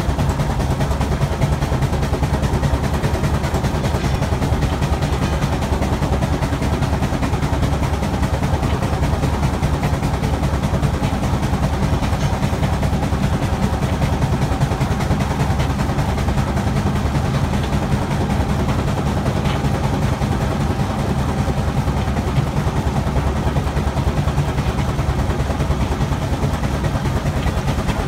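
Wallis & Steevens steam traction engine working uphill on the road: a steady, dense mechanical clatter over a heavy low rumble.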